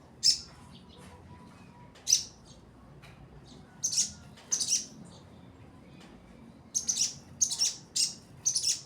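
Sogon bird calls: short, sharp, high-pitched chirps, singly and in quick pairs, about a dozen, with the densest run near the end.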